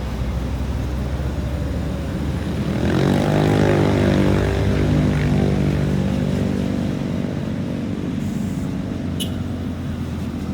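Steady road-traffic rumble with a nearby engine whose pitch rises about three seconds in and then slowly falls away over several seconds. A brief high chirp comes near the end.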